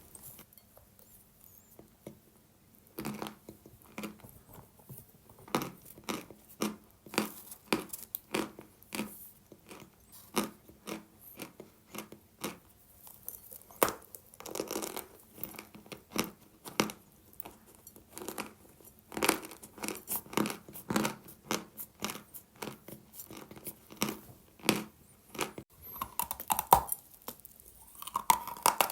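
Dry natural chalk being bitten and chewed close to the microphone: a long run of sharp, irregular crunches, after a short pause near the start.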